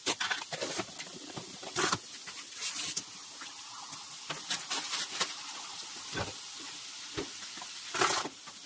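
Chicken kebab meat frying in a pan, a steady sizzle, with several clicks and knocks from containers being handled; a louder burst comes about eight seconds in.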